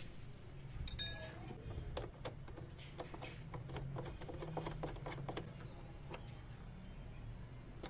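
A small metal bolt being fitted and turned with an Allen key into a motorcycle's plastic rear body panel: a sharp metallic clink about a second in, then a run of light, irregular ticks and clicks over the next few seconds.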